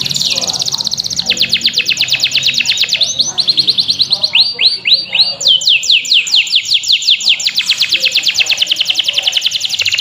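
Young local canary singing a loud, fast rolling trill of rapidly repeated downward-sliding notes; about four seconds in it slows to a few longer swooping notes, then speeds back up into the rapid trill.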